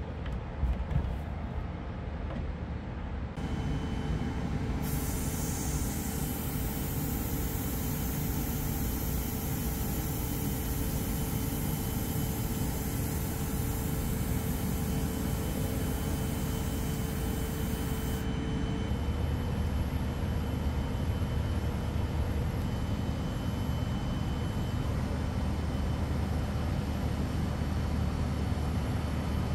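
Steady drone of machinery around a parked airliner on the ramp: a low hum under a spread of noise, with a faint steady whine. The background changes abruptly a few times, about three and a half, five and eighteen seconds in.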